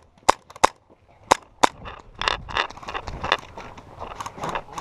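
Airsoft guns firing single shots: four sharp cracks spaced a few tenths of a second apart in the first two seconds, then a busier run of quicker, quieter pops.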